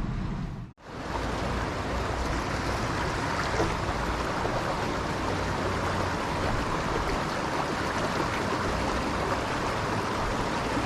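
Mountain stream water rushing with a steady hiss. It follows a brief cut about a second in, before which a low hum is heard.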